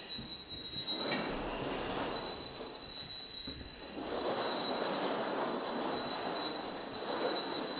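A steady, high-pitched single-tone alarm from firefighters' breathing-apparatus equipment sounds without a break, with the rustle and shuffling of a firefighter in full gear moving beneath it.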